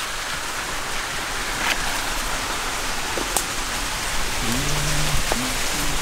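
Steady rush of running water from a stream-fed waterfall, with a few sharp clicks and a brief low voice about three-quarters of the way through.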